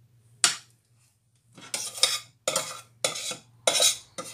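Metal spoon scraping mashed potato out of a stainless steel pot: a sharp clink about half a second in, then a run of short scraping strokes.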